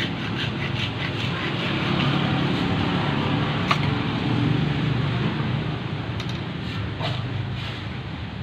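Low rumble of a motor vehicle going by, swelling over the first few seconds and then fading, with a single sharp click about four seconds in.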